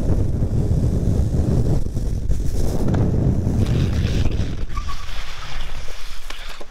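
Heavy wind buffeting on the microphone over a low road rumble from a fast run down wet asphalt, easing after about five seconds. About four seconds in comes a brief scraping hiss as the longboarder slides on his gloved hands and board across the wet pavement.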